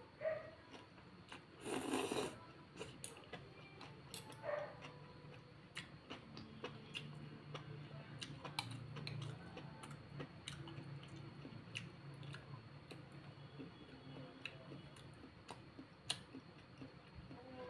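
Close-miked eating of brown rice vermicelli: a slurp of noodles about two seconds in and a smaller one a couple of seconds later, then steady chewing with many small wet clicks.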